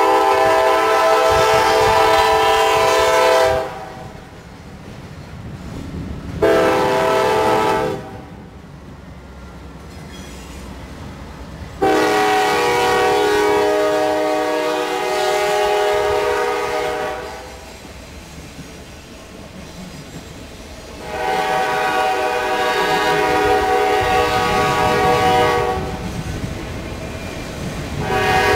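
Norfolk Southern diesel freight locomotive's multi-note air horn, sounding repeatedly as a warning at a grade crossing: a blast ending a few seconds in, a short one, two long ones, and another starting at the end. Between blasts the engines and train wheels rumble and clack past.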